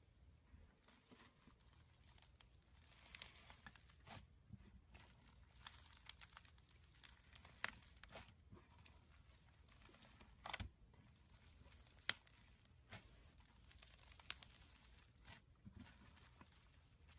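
Slime being squished and stretched by hand: faint crackling with scattered sharp pops.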